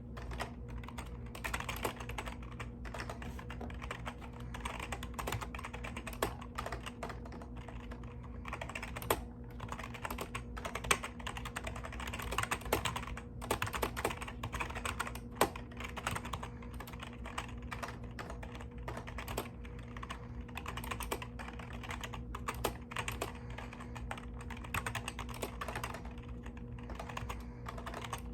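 Mechanical keyboard keys clacking in continuous, irregular typing, with a steady low electrical hum underneath.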